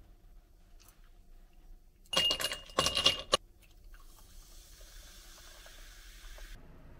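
Kitchenware clattering in two quick bursts with a metallic ring, followed by a faint steady hiss that cuts off suddenly.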